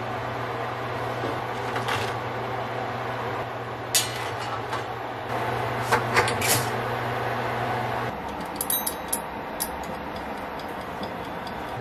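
Cooking on a humming electric cooktop, with a pot bubbling and a few sharp clinks of pans and lids. The hum stops about eight seconds in, and a quick run of ticking clicks follows as a wind-up kitchen timer is turned.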